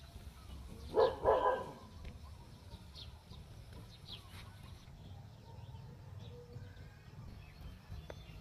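A short animal call in two quick parts about a second in, over a low wind-like rumble. Faint, brief high chirps like small birds are scattered through.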